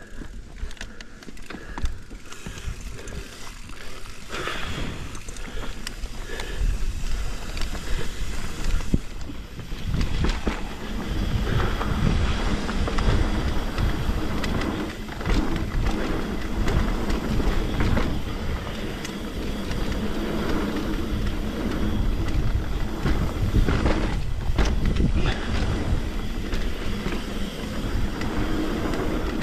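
Trek Remedy 8 full-suspension mountain bike descending a wet trail at speed: tyre noise on the dirt with frequent rattles and knocks of chain and frame over the bumps, and wind buffeting the chest-mounted camera's microphone. It builds in loudness over the first several seconds as speed picks up.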